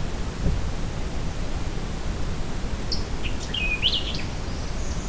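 A songbird sings one short phrase of quick high notes about three seconds in, over a steady low rumble of background noise; a faint low knock comes about half a second in.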